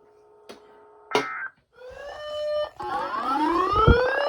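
Electronic alert tones from a weather radio between warning messages: a click, a short tone about a second in, steady tones, then from about three seconds in a tone that rises in pitch for over a second, with a low thump near the end.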